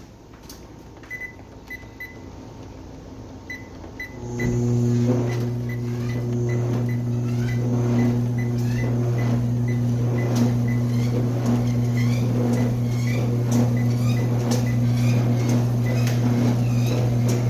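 ProForm treadmill: short beeps from its console buttons, then about four seconds in its drive motor starts and runs with a steady hum. Regular thuds, about two a second, ride on the hum.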